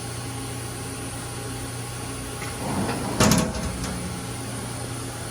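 Mazak FJV20 CNC vertical mill running its automatic tool-change cycle with an empty tool magazine. Under a steady machine hum, a short mechanical movement about two and a half seconds in leads to a loud clunk and rattle just past three seconds, followed by a couple of light clicks.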